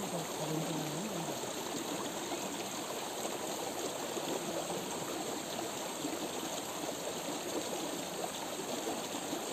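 Small stream of clear water flowing, a steady rushing and trickling.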